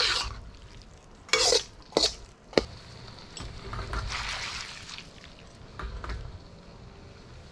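Metal spatula and tongs scraping and clanking against a wok as oily noodles are stirred and tossed. There are a few sharp scrapes in the first three seconds, then softer, longer scraping.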